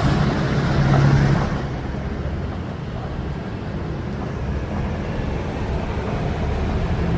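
Road vehicle running along a street: a steady low rumble, with an engine hum in the first second and a half, after which the higher hiss drops away and the rumble goes on more quietly.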